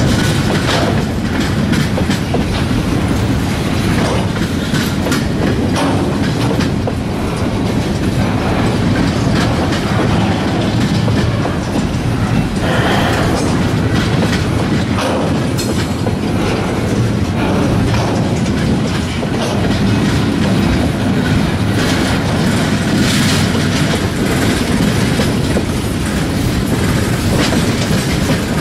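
Freight train cars, flatcars and empty centerbeam lumber cars, rolling past close by, with steady wheel rumble and the rhythmic clickety-clack of wheels over rail joints.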